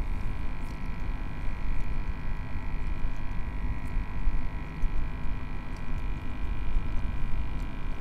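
Bow-mounted electric trolling motor running steadily as the kayak travels, a constant whine of several steady tones, under a low rumble of wind on the microphone.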